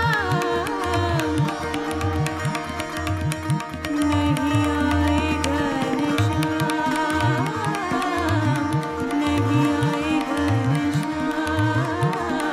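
Hindustani classical music accompanying Kathak dance: tabla strokes with sliding bass tones keep a steady rhythm under a held drone and a melody that glides and wavers in pitch.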